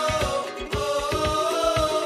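Background pop love song: a singer holds a long note over a steady beat.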